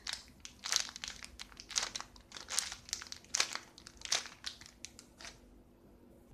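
Clear plastic packaging bag crinkling as it is handled, in irregular crackles that stop about a second before the end.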